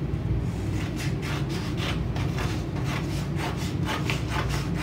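Scissors snipping through a folded sheet of card along its crease: a steady series of short cutting snips, about two to three a second, with the paper rustling.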